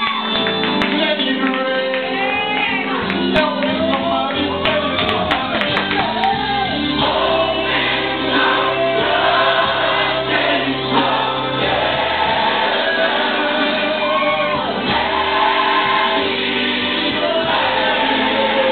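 Gospel music with a choir singing, loud and steady throughout.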